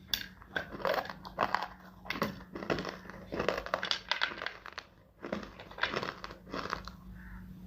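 Crunchy chewing of dry baked edible clay close to the microphone, with sharp crunches about twice a second.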